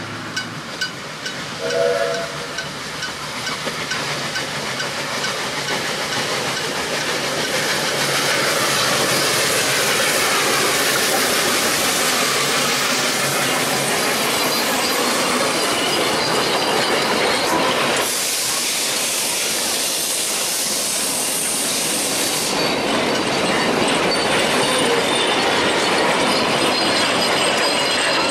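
NGG16 Garratt steam locomotive approaching and passing, with a short whistle note about two seconds in, then a steady rush of steam hiss and running noise that grows louder as it comes level. Its carriages roll by with wheels clacking over the rail joints.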